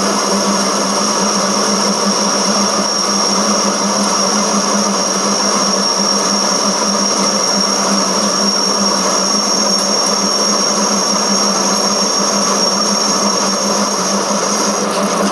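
Metal lathe running steadily while a form tool cuts an A-section V-belt groove into a metal pulley, with a steady low hum under the noise of the cut. A high, steady whine rides over it and stops near the end.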